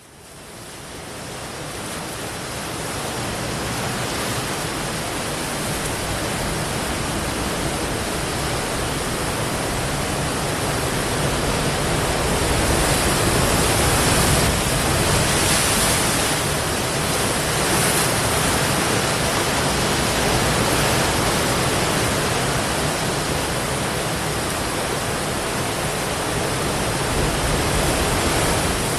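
Steady rushing roar of ocean surf breaking, fading in at the start and swelling a little around the middle.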